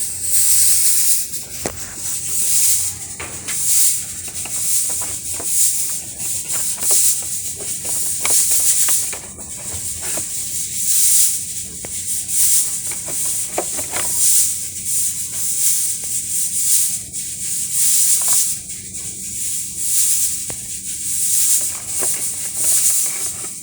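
Water rushing into an Electrolux automatic washing machine's tub through the inlet valve, as a steady hiss and splash that swells and eases. The machine keeps filling and never starts washing, which the technician traces to a faulty water level sensor.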